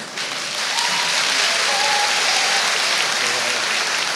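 Large audience applauding, a steady, even clapping from many hands.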